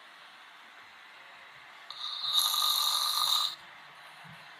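A man snoring: one loud snore, about a second and a half long, starting about two seconds in.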